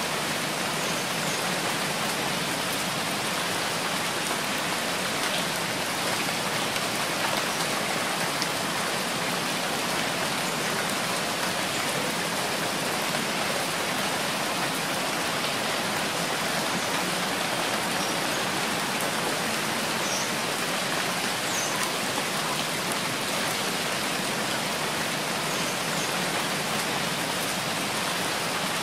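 Steady rain falling, an even unbroken hiss with a few faint drips standing out.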